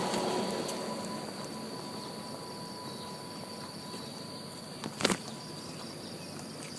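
Steady, high-pitched drone of insects such as crickets or cicadas, with one sharp knock about five seconds in.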